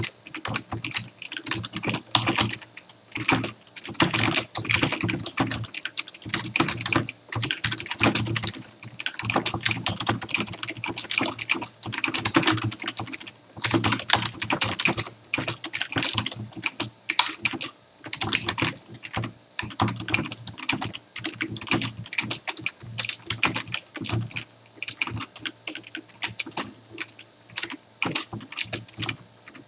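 Fast typing on a computer keyboard: quick key clicks in runs of a few seconds, broken by brief pauses.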